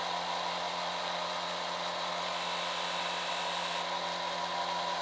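Electric bench disc sander's motor running steadily with nothing against the disc, a continuous even hum. A faint high hiss joins for a second and a half in the middle.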